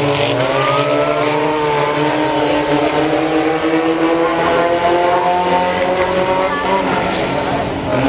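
Several dirt-track race car engines running hard around the oval at once, their pitches overlapping and rising and falling as the cars go through the turns and down the straights.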